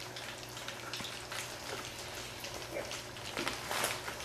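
Four-week-old Swiss mountain dog puppies lapping and smacking at soft mush in their bowls: a dense patter of small wet clicks and slurps, a little louder near the end.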